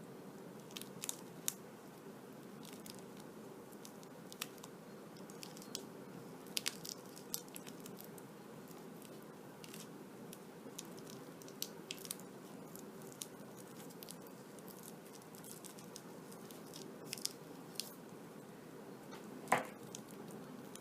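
Black electrical tape being pulled off the roll and wound around an Ethernet cable: faint, scattered crackles and ticks over a steady low background hum, with a louder knock near the end.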